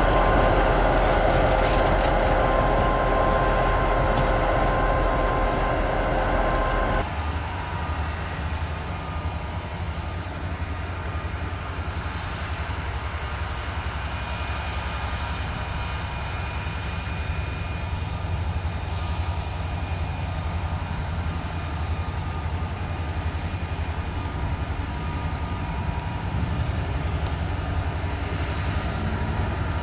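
Union Pacific diesel road-switcher locomotives running as they move slowly with a cut of freight cars. A louder stretch with steady high ringing tones cuts off abruptly about seven seconds in, leaving the steady low rumble of the engines.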